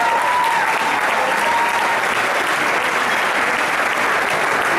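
Crowd in a hall applauding, a dense, steady clapping that holds throughout, with cheering voices heard over it in the first two seconds.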